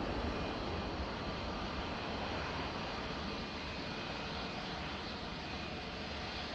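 Embraer KC-390's twin IAE V2500 turbofan engines during the landing and runway roll-out: a steady jet rumble with a faint high whine, easing slowly in loudness.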